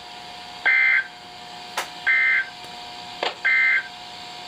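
Emergency Alert System end-of-message (EOM) data tones: three short, harsh, buzzy digital squawks about a second and a half apart, signalling that the alert broadcast is over. A faint steady tone hums underneath.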